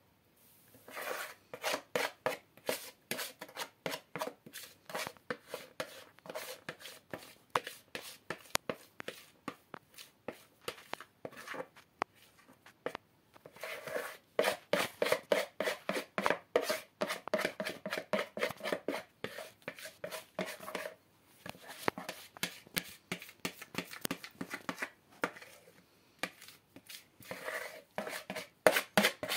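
Spoon scraping thick cake batter out of a plastic mixing bowl into a baking pan in quick, even strokes, about five a second, with short pauses about twelve and twenty-one seconds in.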